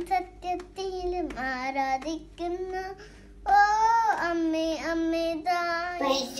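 A young girl singing a devotional song alone, in sung phrases with held notes and a short pause about three seconds in.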